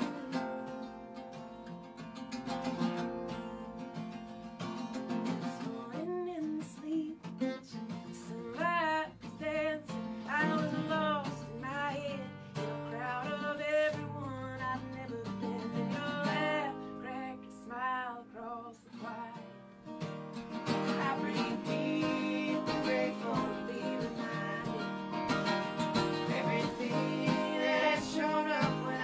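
Live folk song on acoustic guitars with a woman singing. The singing, with a wavering vibrato, comes in about six seconds in, and the strumming grows fuller and louder about two-thirds of the way through.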